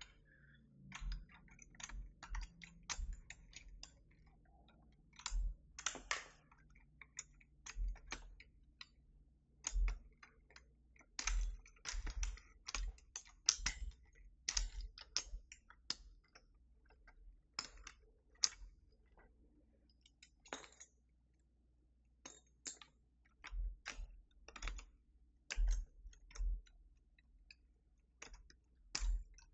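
Keys on a Keychron V6 Max mechanical keyboard being pressed in irregular clusters of clacks, with brief pauses between runs.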